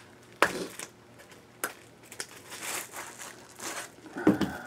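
Plastic packaging crinkling as it is handled and pulled off a cleaver, with a couple of sharp clicks early on and a short louder noise near the end.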